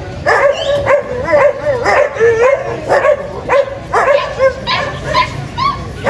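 Husky barking over and over in short yipping barks, about two a second, each with a wavering pitch.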